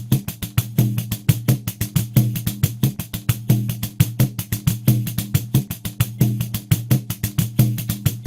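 Pandeiro playing a steady groove at 90 BPM: fast, even jingle strokes, about six a second, with low ringing tones from the drumhead under them.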